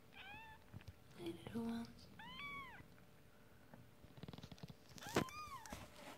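A newborn kitten mewing three times, thin high-pitched cries that rise and fall in pitch, a couple of seconds apart. Soft ticking and rustling from the kittens moving on the towel, with a sharp click along with the third cry.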